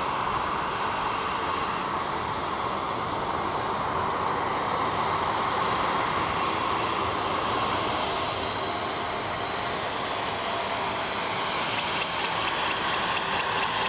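Boeing 737-800's CFM56-7B jet engines running at taxi power: a steady jet whine and rush that holds at an even level.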